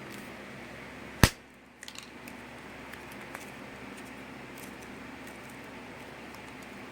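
One sharp click about a second in, then a few faint light clicks and taps over a steady low hum.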